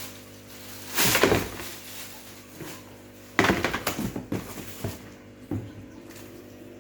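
Handling noises from packaging being opened: a few short bursts of rustling and knocking, one about a second in and a cluster from about three and a half to five and a half seconds in, over a faint steady hum.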